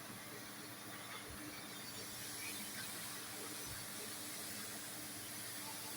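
CNC press brake running: a steady machine hum with a constant hiss, and two faint low thumps about a second and a half and nearly four seconds in.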